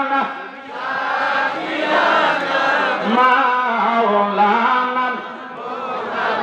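A man's voice chanting milad in a slow, melodic line of long held notes that glide between pitches, with short breaks between phrases.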